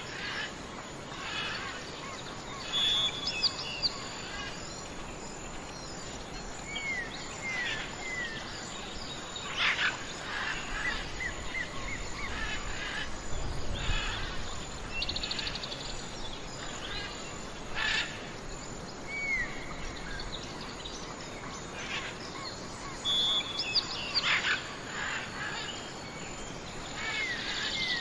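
Several songbirds calling: short downward-slurred whistled notes, quick chirps and brief trills scattered throughout, over a steady background hiss of outdoor ambience.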